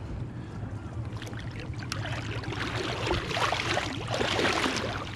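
Water splashing and sloshing as a spring Chinook salmon, held by the tail at the side of the boat, kicks in the river while it is released. The splashing gets busier from about two seconds in, over a low steady hum.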